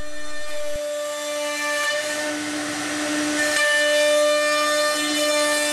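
High-speed router spindle of a CNC stair router, running with a steady whine and the hiss of its dovetail bit cutting a housing groove in a wooden stair stringer.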